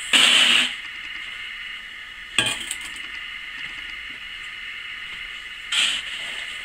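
Stainless steel mixing bowl handled on a metal scale platform: a brief loud rushing noise just after the start, a sharp clink as the bowl is set down about two and a half seconds in, and another short rush near the end.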